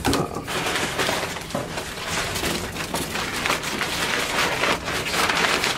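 Crumpled brown packing paper crinkling and rustling without a break as hands dig through it in a cardboard box.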